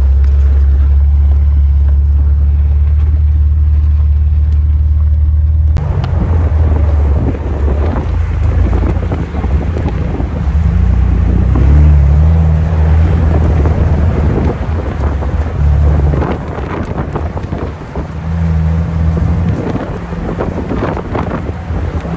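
Wind buffeting the microphone over the rumble of a Jeep driving on a dirt road. About six seconds in the sound changes abruptly to a rougher, noisier rush of wind and road noise.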